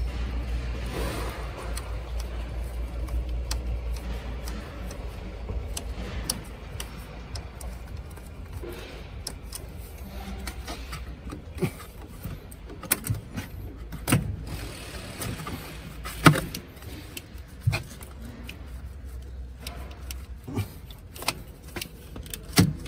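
Scattered metal clinks and knocks of hand tools working on the underside of a car, with several sharper knocks in the second half. A low steady rumble runs under the first four or five seconds and then stops.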